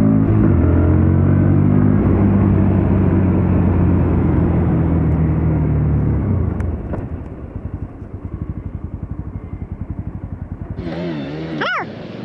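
Motorcycle engine running steadily under throttle. About six seconds in it drops off to a lower, evenly pulsing run as the throttle closes. Near the end the sound changes abruptly to a short sound with a wavering pitch.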